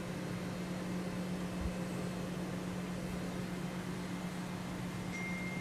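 Steady low electrical-sounding hum over an even hiss: constant room background noise, with no distinct handling or crimping sounds.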